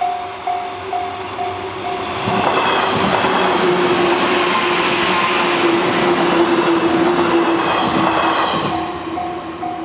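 Japanese level-crossing warning bell ringing about twice a second, then an electric commuter train on the Hanwa Line passes loudly from about two seconds in for some seven seconds, with wheels clattering over the rails. The bell keeps going under the train and is heard clearly again near the end.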